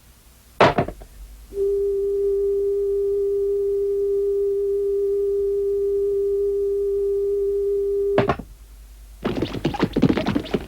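A click, then a steady telephone dial tone held for about seven seconds, which cuts off with another click. Near the end comes a burst of clattering and scraping.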